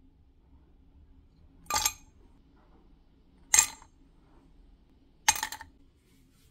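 Ice cubes dropped one at a time with metal tongs into a drinking glass: three sharp glassy clinks about two seconds apart, each with a short ring, the last one rattling briefly as the cube settles.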